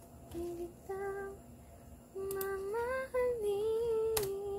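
A woman humming a tune to herself in short, held notes that step up and down, with two sharp clicks, one about halfway through and one near the end.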